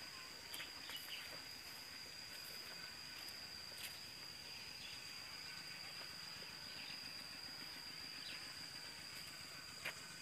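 Faint, steady high-pitched trill of crickets in the field, with a few soft clicks, the sharpest near the end.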